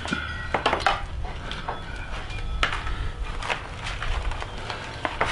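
Gloved hands pulling apart a smoked turkey on a metal tray: soft tearing of meat and skin with a handful of sharp clicks and knocks against the tray, over a low steady rumble.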